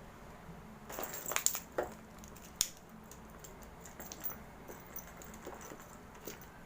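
Small metal clicks and scrapes from a motorcycle ignition lock being taken apart by hand: a cluster of sharp clicks about a second in, one more sharp click a little later, then scattered faint ticks.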